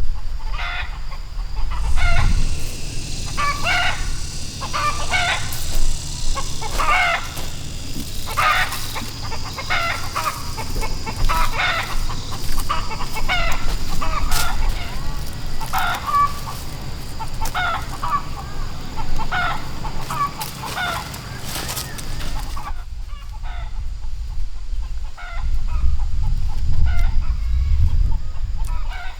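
Chickens clucking, a long run of short calls repeating about once or twice a second.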